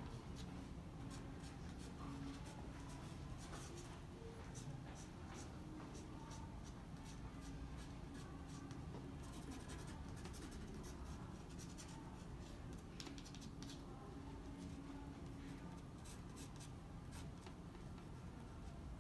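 Black marker pen drawing on watercolour paper: faint, quick scratchy strokes in short runs, over a low room hum.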